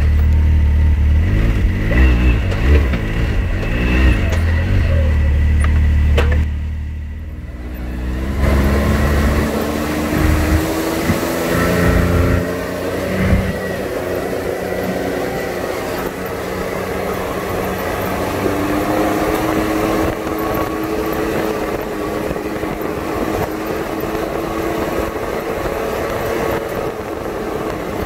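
Turbocharged three-cylinder engine of a 2018 Can-Am X3 Turbo R side-by-side running under load, heard from the cab. It eases off briefly about a quarter of the way through, then climbs in pitch as it accelerates again and settles into a steady run.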